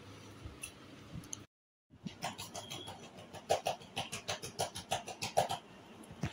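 Eating rice by hand: a quick run of wet, sticky clicks and smacks, several a second, coming after a brief gap of silence about a second and a half in.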